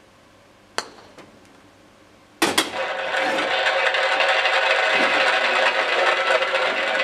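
A putter taps a golf ball with a sharp click about a second in, followed by a few light ticks. About two and a half seconds in, a loud sustained sound with many steady tones starts abruptly and runs on.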